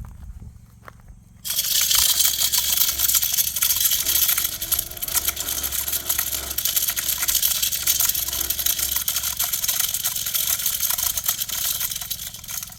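Deer feeder's spinner motor running and flinging feed pellets, a dense rattling spray of many small hits that starts suddenly about a second and a half in and dies away near the end.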